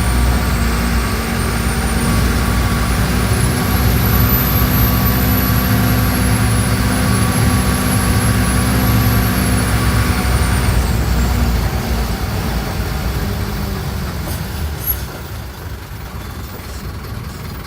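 Mercedes-Benz OF-1417 bus's diesel engine running steadily, with a high whine that glides up and down over it. About twelve seconds in the whine stops and the sound fades to a quieter hum, with a brief sharp sound a little later.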